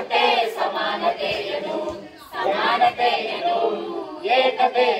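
Several voices singing together without instruments, breaking off briefly about two seconds in before carrying on.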